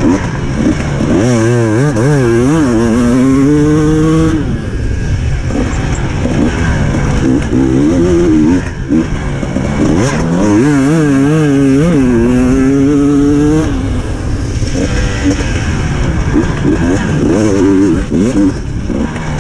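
KTM 300 TPI two-stroke dirt bike engine revving hard under full throttle. The engine note is held high and wavers twice, dropping back between, over steady wind noise.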